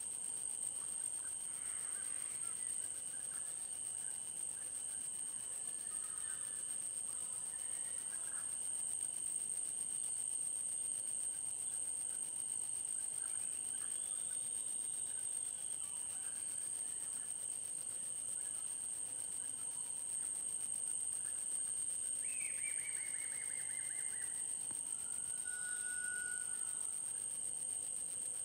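Forest ambience: insects keep up a steady high-pitched drone, with scattered short animal calls over it. About two-thirds of the way through comes a falling trill, followed by a brief whistled note.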